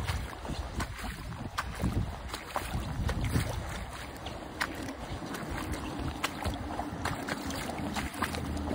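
Wading footsteps splashing through shallow river water, an irregular run of splashes and sloshes, with wind rumbling on the microphone.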